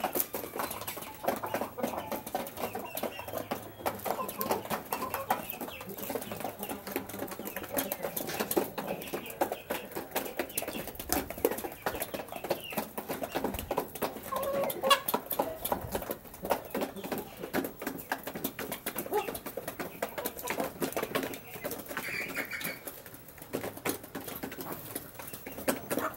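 Flock of half-grown chickens eating fattening feed: a constant run of quick beak taps on the feed dishes and concrete floor, with soft clucking among them.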